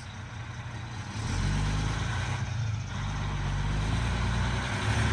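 A school bus engine rumbling low, growing louder about a second in and then running steadily.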